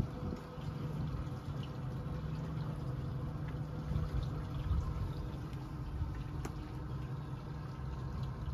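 Boat motor running steadily at low speed, with water sloshing against the hull.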